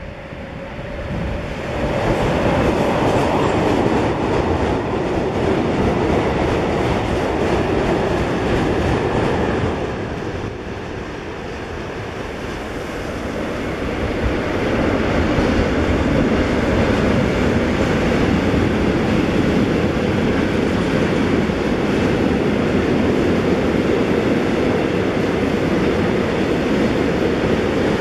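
Freight trains rolling past on an electrified line: the steady rumble and clatter of wagon wheels on the rails. It dips about ten seconds in, then builds again as a train of tank wagons passes close by.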